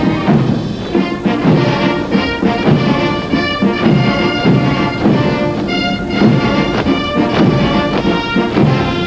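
Military band playing a march: brass over drums with a steady beat.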